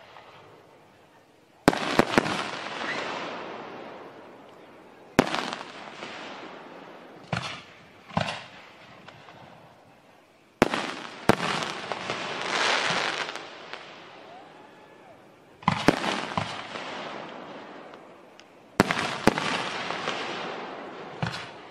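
Fireworks going off in volleys: sharp bangs, some in quick pairs or threes, each followed by a crackling, hissing fall-off that dies away over a few seconds, about eight times.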